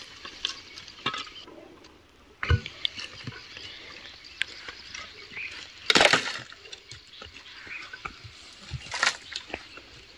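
Irregular knocks and clinks of hard objects, with three louder impacts about two and a half, six and nine seconds in.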